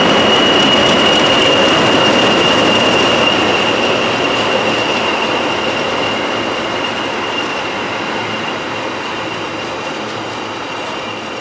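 Pair of Class 20 diesel locomotives with English Electric engines passing, a loud rumble of engines and wheels with a steady high-pitched whine over it. The sound dies away steadily after about three seconds as the locomotives move off.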